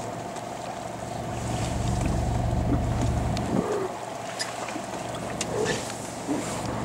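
A boat's engine runs with a steady hum, with wind on the microphone gusting about a second and a half in and water washing against the hull.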